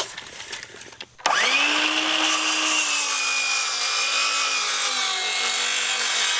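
Electric saw starting about a second in and cutting through a wooden joist board, its motor pitch sagging slightly under load as the blade goes through the wood.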